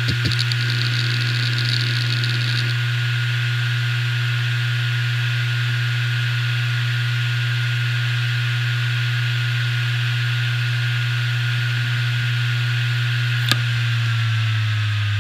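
Hitachi Deskstar 7K2000 2 TB 7200 rpm hard drive running, with a strong, steady low hum and a steady high whine; this drive is noted for vibration problems. For the first couple of seconds the heads tick rapidly. About 13.5 s in there is a sharp click, and the whine then starts falling in pitch as the drive begins to spin down.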